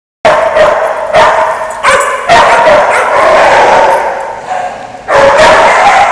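Dogs barking loudly and repeatedly. Barks come in quick runs that start about a quarter second in, with a dense stretch in the middle and another run near the end.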